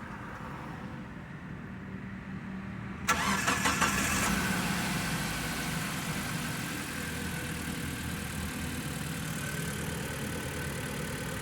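Changan van's petrol engine cranking and catching about three seconds in, then idling steadily on its newly replaced ignition coils, fitted to cure a misfire in cylinders 2 and 3.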